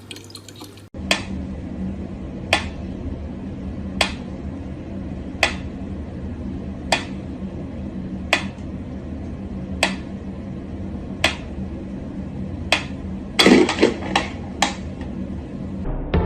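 Sharp taps or knocks repeating evenly, about one every one and a half seconds, over a steady low hum, with a quick flurry of several taps near the end.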